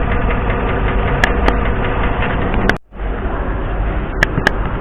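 A V8 engine idling with a steady, rapid tapping from the valvetrain, which the mechanic suspects is a collapsed AFM valve lifter on cylinder 7. The sound cuts out for a moment about halfway through, and a few sharp clicks come twice in pairs.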